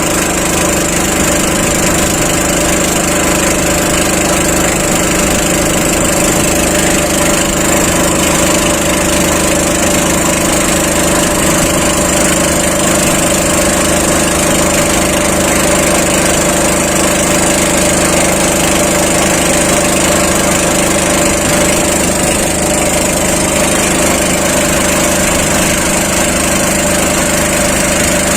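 A small engine running steadily at one constant speed, with an even, unchanging drone.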